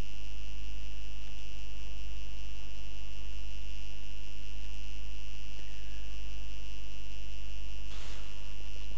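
Steady electrical mains hum with a high whine in the voice recording, running unchanged at about the loudness of the speech. A brief burst of noise comes about eight seconds in.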